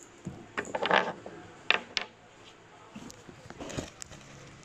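Irregular light clicks and clatters of small plastic toys being handled, busiest in the first two seconds.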